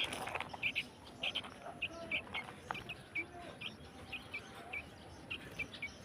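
Fledgling sooty-headed bulbul chirping: a steady run of short, high chirps, about two or three a second.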